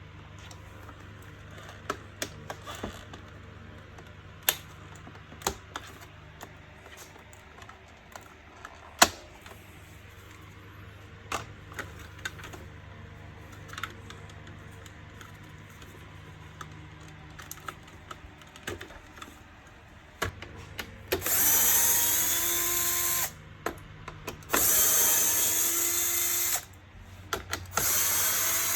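Scattered clicks and knocks of handled plastic parts, then a cordless screwdriver runs in three short bursts of about two seconds each, its pitch rising as it spins up at the start of each, as the vacuum cleaner's casing is unscrewed.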